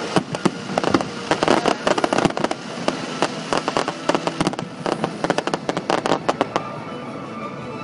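Fireworks going off: a rapid run of bangs and crackles that stops near the end, leaving a steadier, quieter background.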